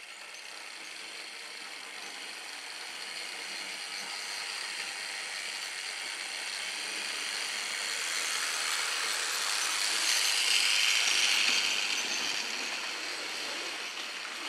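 Model railway diesel locomotive running past, its small electric motor giving a high-pitched whine and its wheels and freight wagons rattling on the track. The sound grows steadily louder as the train approaches, is loudest a little past the middle, then eases slightly as the wagons roll by.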